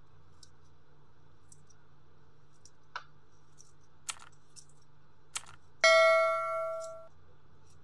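A single bell-like notification ding about six seconds in, ringing several clear tones at once and fading over about a second: the sound effect of a subscribe-button animation. A few short sharp clicks come before it.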